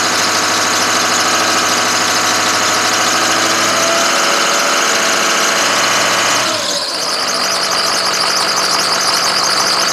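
Ford 6.0-litre Powerstroke V8 turbo-diesel running with the hood open, with a high-pitched whine over the engine note. The whine is typical of the rebuilt Garrett variable-vane turbocharger. About six and a half seconds in, the engine note falls in pitch as the speed drops.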